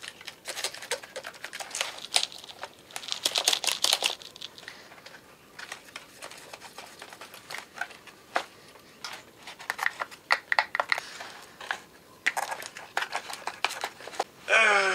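Irregular clicking and rustling in clusters, like handling noise, with a short voice sound breaking in just before the end.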